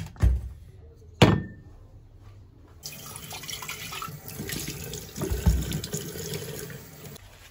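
Two sharp knocks, then a tap running water into a sink for about four seconds, with a low thud partway through.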